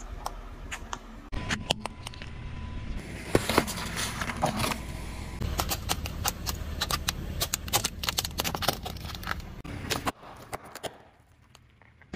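Food and plastic objects being crushed under a slowly rolling car tyre: a dense run of sharp cracks and crunches over a low rumble, in several short takes that change abruptly, quieter near the end.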